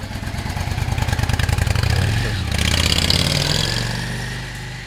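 Yamaha 650 Silverado's V-twin engine running as the motorcycle rides off. It grows louder to a peak about three seconds in, then fades.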